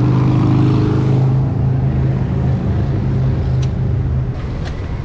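A motor vehicle's engine running at a steady pitch, dropping away about four seconds in.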